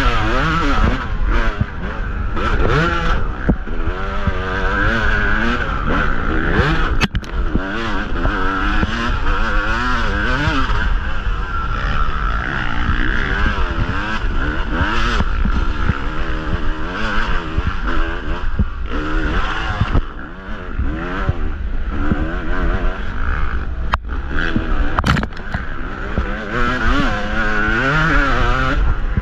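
2023 Yamaha YZ250 two-stroke dirt bike engine revving up and down continuously as the bike is ridden hard over rough trail, with heavy wind and vibration rumble on the microphone. A few sharp knocks from the bike hitting the terrain stand out.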